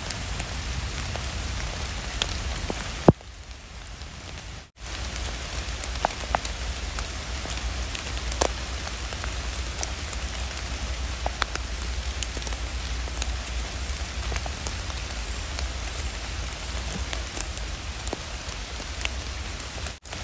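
Steady rain falling on wet leaves and the forest floor, with scattered sharp ticks of close drop hits; the rain dips briefly about three seconds in.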